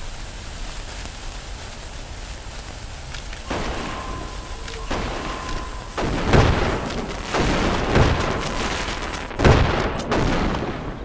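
Consumer fireworks going off: a hiss starts about a third of the way in, then loud bangs with crackling follow, the loudest about two-thirds of the way through.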